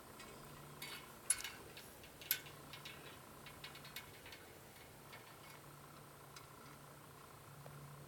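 A scatter of sharp light clicks and ticks, the loudest two about a second and two seconds in, thinning out after about four seconds over a faint steady low hum.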